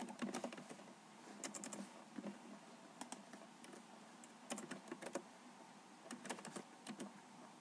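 Computer keyboard keys being typed faintly, in short runs of a few keystrokes with pauses between them.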